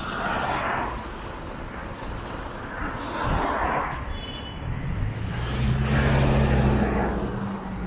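Road traffic, with vehicles passing close one after another, each swelling and fading. The loudest pass comes about five to seven seconds in, with a low steady engine hum under the tyre noise.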